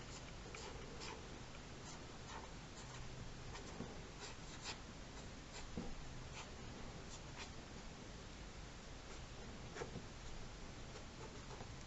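Ink pen scratching across paper in many short, irregular strokes, over a steady background hiss.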